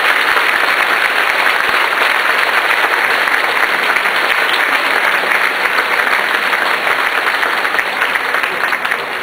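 A large crowd of churchgoers applauding, a dense, steady clapping that starts to ease off near the end.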